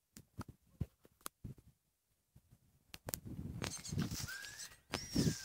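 Phone-microphone handling noise: a few scattered soft clicks and taps, then from about three seconds in a spell of rubbing and rustling as the phone moves against clothing.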